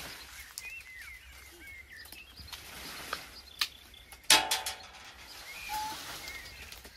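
Small birds chirping now and then over quiet outdoor ambience, with a few sharp knocks and one louder clank that rings briefly about four seconds in.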